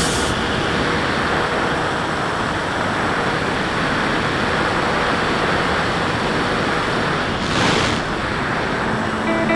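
Airflow rushing over the microphone of the onboard camera on a flying RC model plane: a steady, fairly loud hiss with a brief louder gust about three-quarters of the way through.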